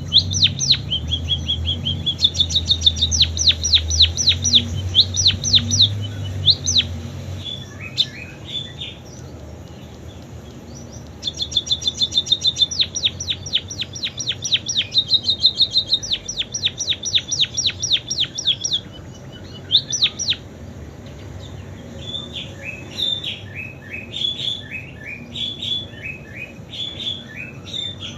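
A caged pipit singing song learned from canaries: long rapid trills of repeated sweeping notes with short pauses between the runs, turning to choppier, lower notes in the last few seconds.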